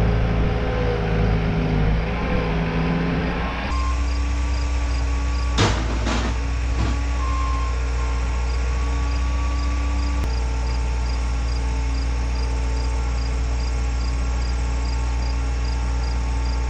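A motor vehicle's engine running steadily at a constant pitch, with a few sharp knocks and clatter about six seconds in. The engine sound changes abruptly twice.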